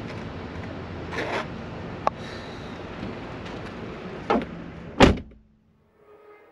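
A pickup truck door is slammed shut about five seconds in; it is the loudest sound. Before it there are a few lighter knocks and clicks over steady background noise.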